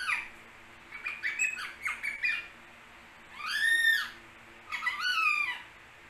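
Rose-ringed parakeet squawking: a quick run of short calls, then two longer harsh calls that each rise and fall in pitch. Its owner takes the calls for the bird being angry.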